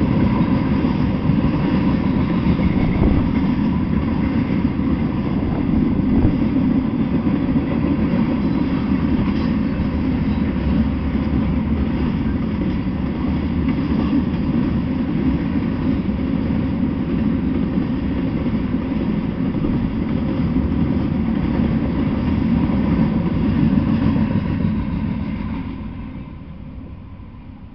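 Freight train cars (flatcars and covered hoppers) rolling past: a steady loud rumble of steel wheels on the rails, which fades away over the last few seconds as the end of the train goes by.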